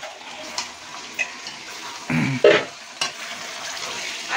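Marinated chicken pieces frying and sizzling in a kadai as a spatula stirs and scrapes them around the pan. About two seconds in there is a brief louder noise.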